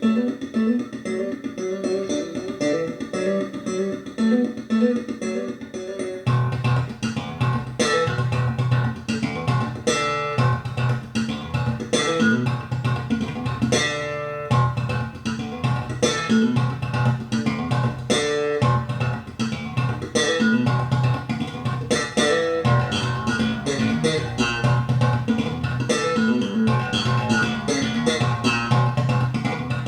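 Guitar music played back through Usher 520 loudspeakers: picked acoustic-style guitar notes, with a deep bass guitar line coming in about six seconds in.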